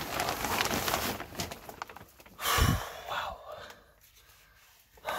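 Plastic vapor-barrier sheeting rustling and crinkling under a person crawling, with a low thump about two and a half seconds in; it then goes quiet.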